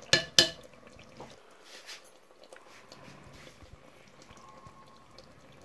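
Two sharp clicks about a third of a second apart, then quiet room noise with a few faint ticks.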